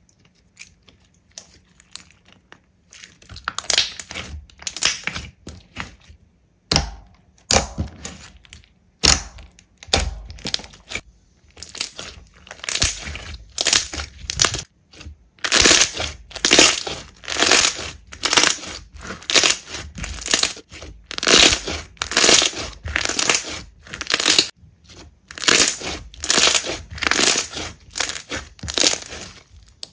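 Slime being pressed and squeezed by hand in a steady rhythm, about one and a half presses a second. It starts softly a few seconds in and grows louder from about twelve seconds in.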